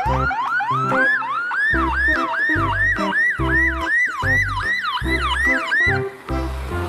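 Police car siren in fast yelp mode: quick rising sweeps, about three a second, each dropping off sharply, stopping about six seconds in. A low musical beat pulses underneath.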